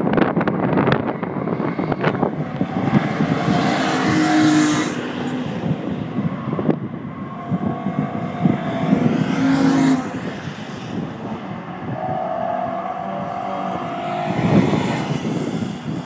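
Several cars driving past one after another on a race track at speed, each engine note swelling and fading as it goes by. Gusts of wind buffet the microphone near the start.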